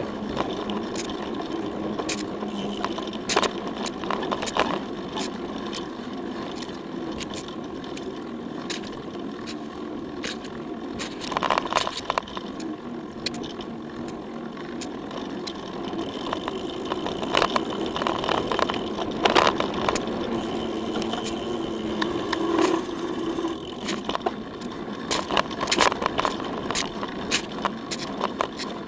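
Giant Trance X0 full-suspension mountain bike riding a dirt singletrack, heard through a camera mounted on its frame. A steady rush of tyre and wind noise runs throughout, with frequent knocks and rattles as the bike goes over bumps, in several rough patches.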